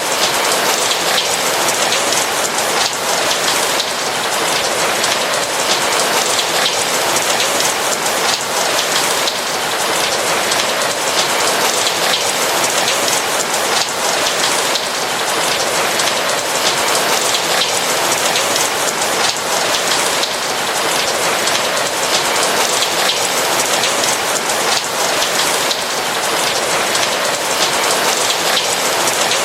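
Steady rain: a dense, even hiss of many small drops falling, with no thunder.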